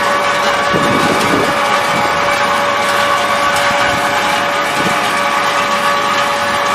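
Wood-pellet production machinery running steadily: a loud, even mechanical noise with a constant hum and whine, with a brief rougher rumble about a second in.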